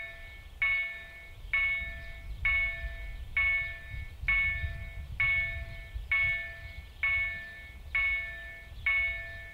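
Level crossing warning bell ringing in even strokes, a little under one a second, each ring fading before the next: the crossing's signal that a train is approaching. A low rumble sits underneath.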